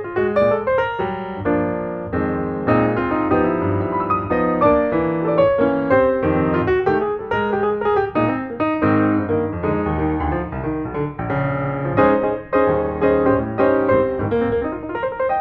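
Background piano music, a busy run of quick notes.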